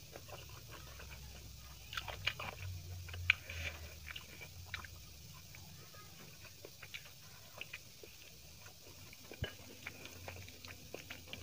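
Close-miked chewing of chicken biryani, with irregular small wet mouth clicks and the squish of fingers working rice on the plate. One sharper click comes about two-thirds of the way through.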